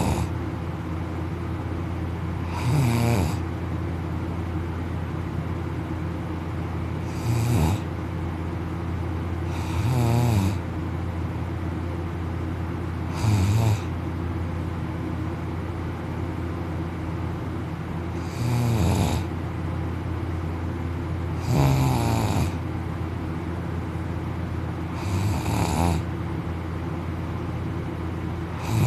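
A young man snoring loudly in deep sleep, with seven heavy snores every three to five seconds and one longer pause midway. A steady low hum runs between the snores.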